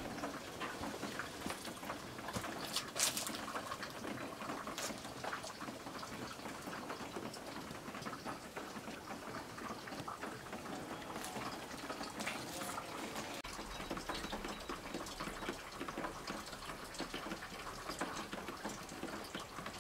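Meltwater from thawing snow trickling and gurgling, with scattered sharp drips.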